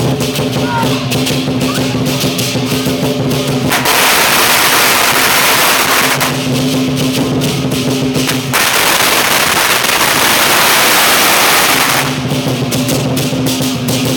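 Strings of firecrackers going off on the street in fast crackling volleys. Twice the explosions merge into a solid, very loud wall of noise lasting a few seconds. Lion-dance drum and cymbals play underneath.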